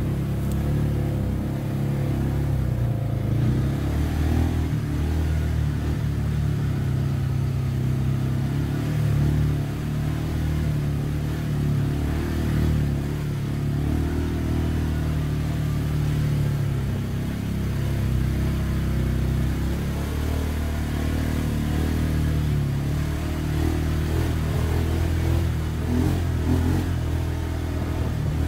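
A motor vehicle driving at a steady pace: a continuous low engine and road rumble with no sudden changes.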